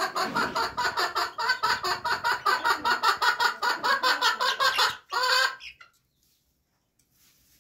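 A hen cackling in a fast, even run of clucks, about five or six a second, ending about five seconds in with one longer call. This is the call a hen makes when she is ready to lay an egg.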